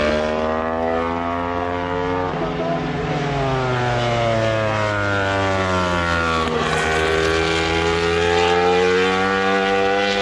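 A continuous engine drone whose pitch slides slowly down for about six seconds, then climbs again.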